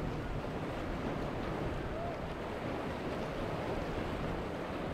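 Steady rushing noise of wind and waves.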